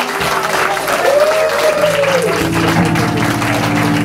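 Audience applauding a band at a live-house gig, with a brief gliding cheer about a second in; a little past halfway a held, many-note chord from the stage instruments joins in and rings on steadily.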